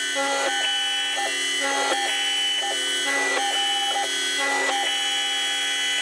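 CNC-converted Sieg X2 mini mill running a drilling program: its stepper motors and spindle motor give a whine of several steady tones that shift in pitch and level every half second or so as the axes move between positions, then hold steady for the last second.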